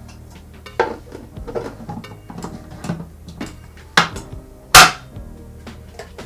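Parts of a juicer knocking and clicking together as it is assembled: a few sharp clacks of plastic and metal, the loudest a little under five seconds in, over background music.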